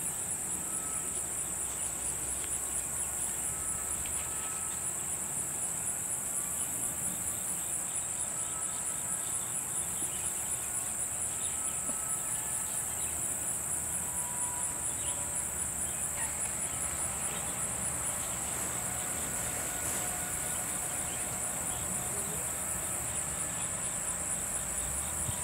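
A steady, high-pitched chorus of summer insects with a fast, even pulse.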